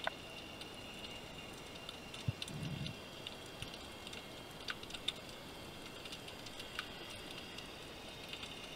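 Underwater ambience picked up through a camera housing: a steady hiss with scattered sharp clicks, and a dull thump followed by a short low rumble about two seconds in.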